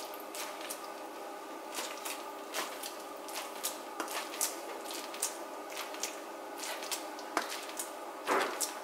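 Fingers dimpling oiled focaccia dough in a baking pan: many short, wet squishes and small pops at an irregular pace, with a louder squelch near the end, over a faint steady hum.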